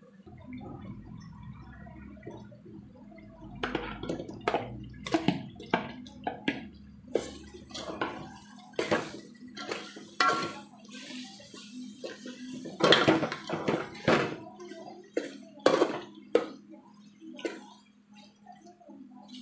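Metal spoon stirring a thick, wet masala in an aluminium pot, scraping and knocking against the pot's sides in an irregular run of clanks. The loudest knocks come about two-thirds of the way through.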